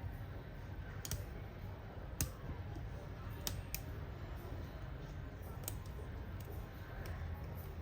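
Scattered light clicks and taps of small repair tools working on a disassembled iPhone's internals, about seven in all, over a steady low hum.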